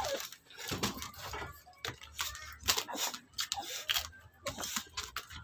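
Close-up chewing of crisp fresh cucumber: a quick, irregular run of sharp crunches with the mouth working between bites.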